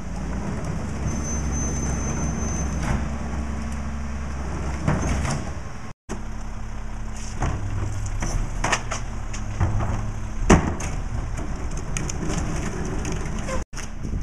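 Rear-loader garbage truck's diesel engine running steadily while wheeled trash carts are tipped into the hopper, with sharp plastic-and-metal knocks and bangs as the carts are handled and dumped. The loudest knock comes about ten and a half seconds in.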